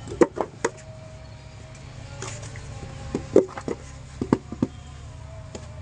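Hand moulding of clay bricks: a wooden brick mould knocked and scraped against sandy ground, in small clusters of sharp knocks, three quick ones at the start and more around three and four and a half seconds in. A steady low hum runs underneath.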